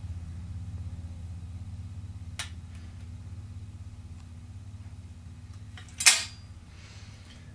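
Parts of a 12-gauge shotgun's action being handled during cleaning: a faint click about two and a half seconds in and a louder sharp clack about six seconds in, over a steady low hum.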